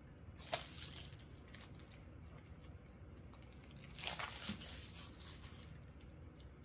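Clear plastic photocard sleeves crinkling as they are handled: a short sharp crackle about half a second in, then a longer crinkling spell around four seconds in as a sleeve is pulled at and opened.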